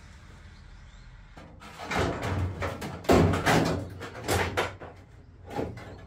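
Loose sheet-steel rear quarter-panel skin of a Nissan 240SX knocking and rattling against the car body as it is held up and set in place for a test fit. There are a few irregular bumps and scrapes, starting about two seconds in.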